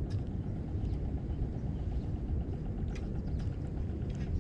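Low, steady rumble of wind on the microphone, with a few short, light clicks from the spinning reel and tackle being handled.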